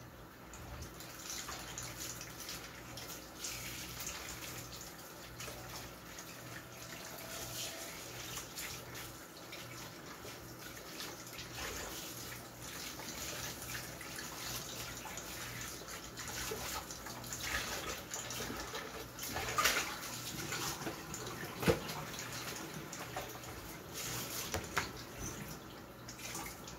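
Tap water running into a kitchen sink while lettuce leaves are rinsed under it and a plastic bowl is washed, the flow splashing unevenly as hands move through it. A couple of sharp knocks of things against the sink about two-thirds of the way through, the second the loudest sound.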